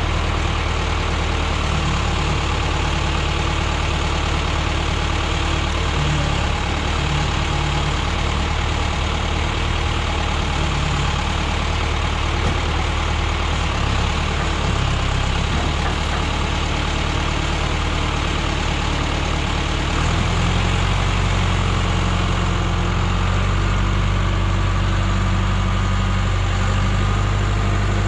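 John Deere 410B backhoe's diesel engine running steadily while the loader works; about twenty seconds in the engine note changes and gets a little louder and fuller in the low end.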